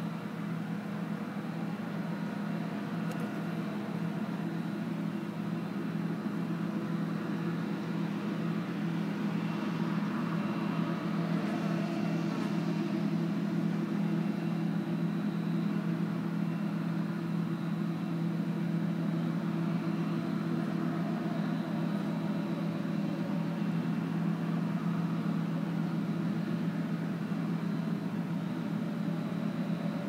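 John Deere S680 combine harvester running under load as it harvests wheat and unloads grain through its auger, with the tractor pulling the chaser bin alongside: a steady, even machine drone that grows a little louder over the first several seconds.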